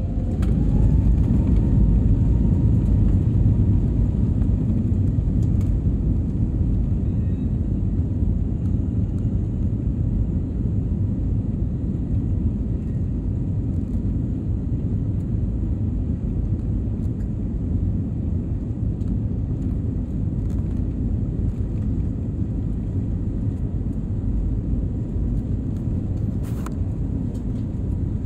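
Passenger aircraft's engines heard from inside the cabin on the takeoff roll: a rising whine as the engines spool up about a second in, then a steady loud rumble as the plane speeds down the runway.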